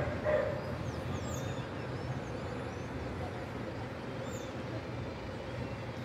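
Steady city ambience heard from high above the streets: a low hum of distant traffic with wind noise. A dog gives a short bark right at the start, and faint high bird chirps come through now and then.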